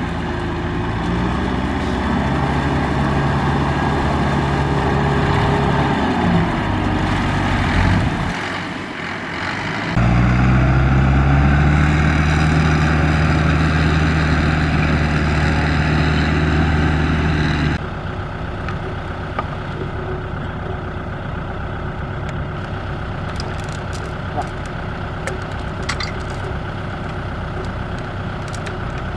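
Farm tractor diesel engines running under load in deep mud, the engine pitch shifting and dropping about a quarter of the way in, then loud and steady. Past the middle it cuts to a quieter steady engine hum with a few faint clicks.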